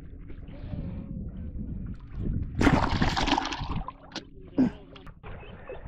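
Water splashing and sloshing by a fishing boat, loudest for about a second in the middle, followed by two short sharp knocks.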